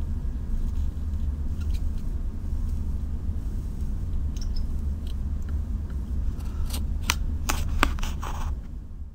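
Steady low hum in the room, with a few short crackles near the end as a soldering iron's tip meets the socket pins and the flux sizzles off.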